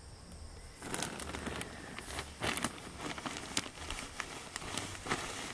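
Plastic sack of wood-shavings animal bedding rustling and crinkling as the shavings are shaken out, starting about a second in, with an irregular run of crackles and clicks.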